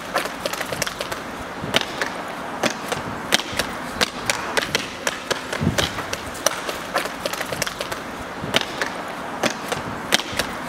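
Irregular sharp clacks and knocks, two or three a second, over a steady noisy background.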